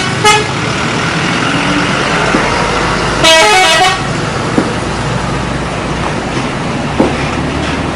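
Bus 'telolet' musical horn: a short toot just after the start, then a quick run of changing multi-tone notes about three seconds in, over steady traffic noise.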